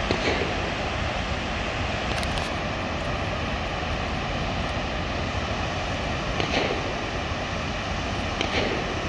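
Steady rushing of high-water discharge pouring through the open spillway gates of Clarence Cannon Dam and churning in the river below. A few faint sharp pops from a shooting range stand out over it, about four times.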